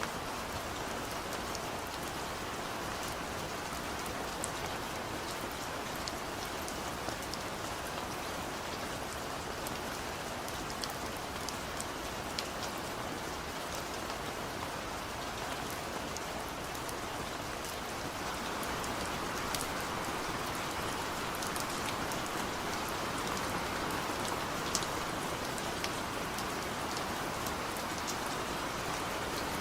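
Steady rain falling, with scattered sharp drop ticks on a surface, getting a little heavier about two-thirds of the way through.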